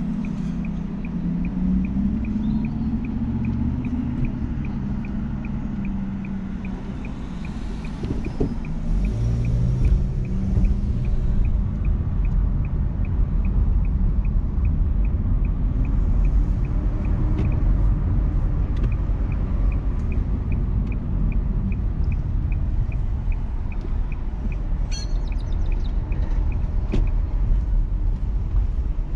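Car engine and road rumble heard from inside the cabin while driving, growing stronger about a third of the way in as the car speeds up. Over it, the turn-signal indicator clicks in an even rhythm, about two or three clicks a second, and stops near the end.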